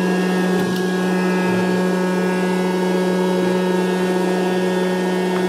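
Hot-air popcorn popper running: its fan motor and blown air give a steady low hum with a rushing sound. The kernels are still heating in the chamber, with no popping yet.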